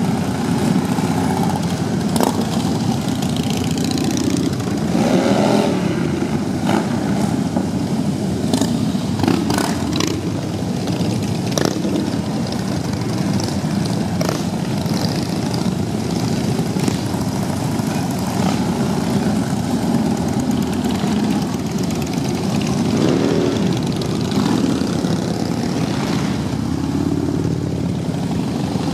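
A procession of Harley-Davidson V-twin motorcycles riding slowly past one after another, their engines running continuously, each bike's pitch rising and falling as it revs and passes.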